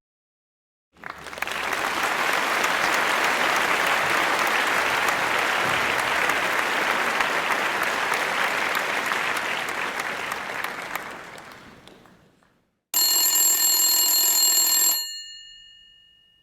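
A crowd applauding, starting about a second in, holding steady and then fading out. After a short gap a telephone bell rings once for about two seconds and rings on briefly after it stops.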